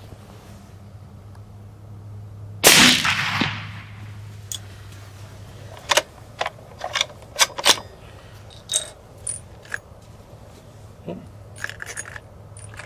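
A single suppressed shot from a .300 Win Mag rifle fitted with an Elite Iron STFU suppressor, about three seconds in, with a tail that dies away over about a second. It is followed by a run of light clicks and knocks.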